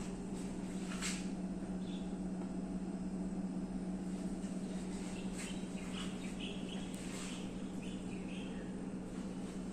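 Midea mini rice cooker boiling under its glass lid: a steady low hum over a rough bubbling noise, with a few short chirps and clicks now and then.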